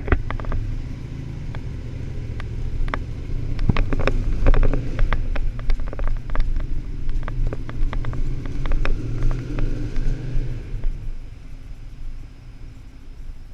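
Motorcycle engine running at low revs in a concrete parking garage, a steady low rumble with many sharp clicks over it. It fades near the end as the bike rides away.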